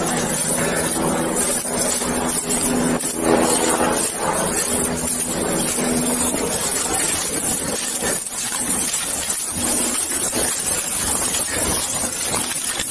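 Footsteps and brush rustling as a handler moves through leaf litter and undergrowth behind a tracking dog on a leash. A steady low mechanical drone sits under it and fades out about six seconds in.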